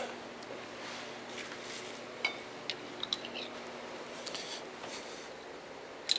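A few light, sharp clicks and taps of hand tools being picked up and handled, over a faint steady hum.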